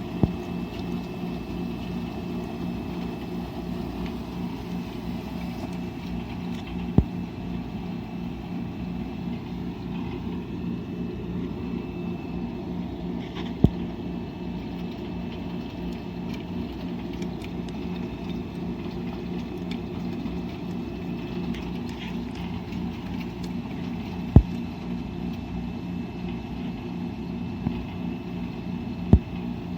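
Washing machine running with a steady low hum, with a sharp knock about every five to ten seconds.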